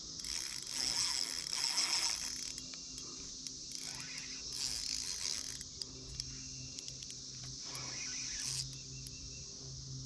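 Fishing reel being cranked to wind in a hooked fish, its gears clicking and whirring in uneven spells, over a steady high chorus of crickets.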